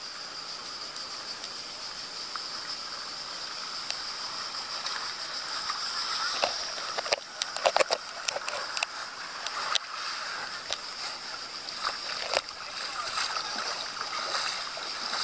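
Busy beach ambience: distant voices of bathers and water splashing, over a steady high-pitched buzz, with a few short sharper sounds between about six and thirteen seconds in.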